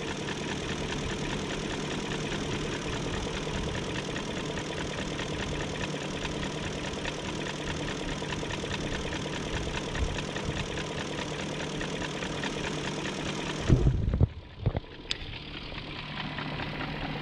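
BMW 740i's M62TU 4.4-litre V8 idling steadily, with a light ticking through it that the owner puts down to the fuel injectors clicking. About three-quarters of the way in come a few loud thumps, after which the sound turns duller.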